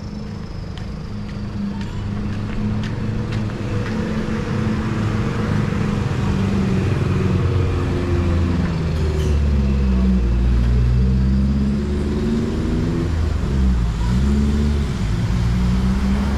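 A motor engine running close by with a low, pitched hum that grows louder toward the middle, its pitch sinking and rising twice as the revs change.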